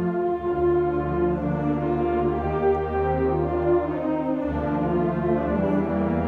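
Student concert band playing sustained brass and woodwind chords. The low bass notes drop out near the start and come back in about four and a half seconds in.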